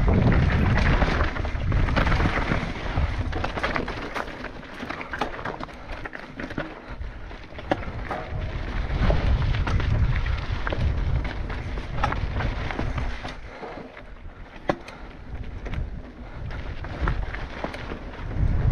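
Mountain bike riding down a rocky dirt trail: tyres rolling over dirt and rock, with frequent sharp clicks and rattles from the bike over the bumps. Wind buffets the camera microphone in gusts, as a low rumble that rises and falls.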